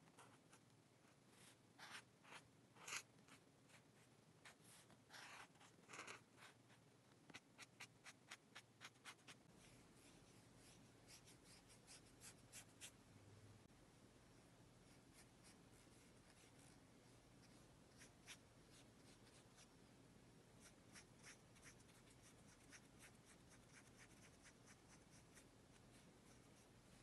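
Faint scratching of a black marker drawn across paper in quick strokes that come in clusters. After about nine seconds it gives way to softer, sparser strokes of a fine paintbrush laying watercolour on the paper.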